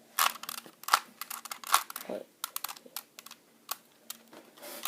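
Rubik's cube layers being turned quickly by hand: a fast, irregular run of plastic clicks and rattles.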